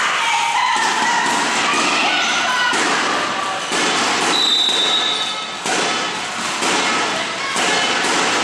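Volleyball play in a sports hall: irregular thuds of the ball being hit and bouncing on the wooden floor, echoing, with girls' shouts between them and a brief high whistle note about halfway through.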